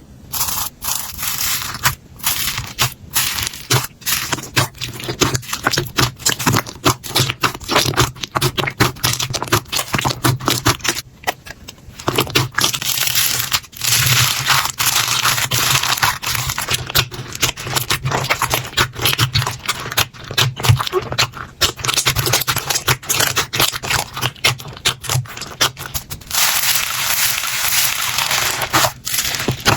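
Slime being squeezed, pressed and stretched by hand: a dense run of sharp wet pops and crackles, with longer stretches of continuous crackling about halfway through and again near the end.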